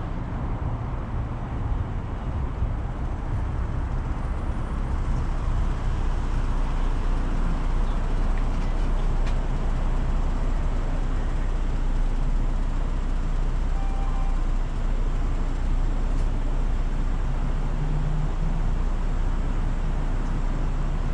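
Car engine idling, a steady low rumble, heard from inside the car.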